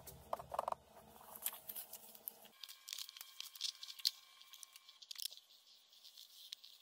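Sheets of tracing paper being handled and shifted by hand, with faint rustling and crinkling. The tail of background music stops abruptly about two and a half seconds in.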